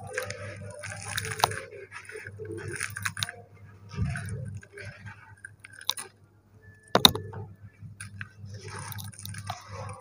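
Dry sand-cement dirt being crumbled and sifted by hands in a plastic basket sieve: irregular soft crumbling and rustling with scattered small clicks, and one sharp knock about seven seconds in, over a steady low hum.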